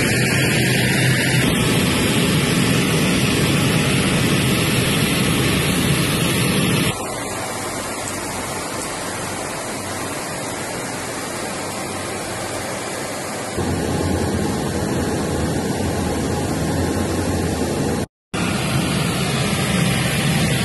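Steady engine and airflow noise inside a firefighting aircraft's cabin in flight. It changes level and colour abruptly about seven and thirteen and a half seconds in, and cuts out completely for a moment near the end.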